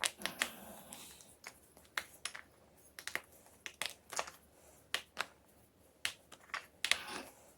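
Homemade gym chalk crunching: a string of sharp, crisp cracks and crumbles coming at irregular intervals, several a second.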